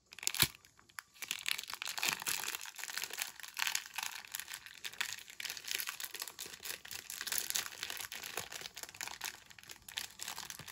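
Plastic wrapper of a Lucas Salsagheti candy pack crinkling and rustling without a break as it is handled and worked open.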